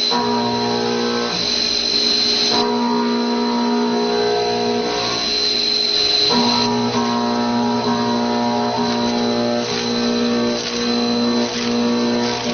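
Background music of sustained chords that change every few seconds, over a steady high-pitched whine.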